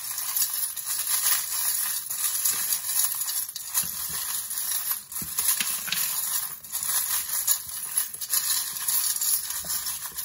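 A handful of small metal charms, dice and trinkets rattling and clinking as a hand stirs them around in a metal bowl: a steady jingle of many small clicks, mixing the charms before they are cast.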